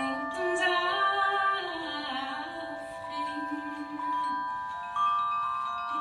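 Live duo music: a woman's voice sings a slow, gliding line over long, ringing metallic tones from mallet percussion.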